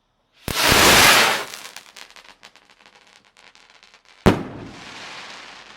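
A 100 gram Funker Super Bomben firework rocket launching with a loud whoosh, followed by scattered crackles, then a sharp, really loud report a little over four seconds in and a crackling fizz as the break spreads and fades.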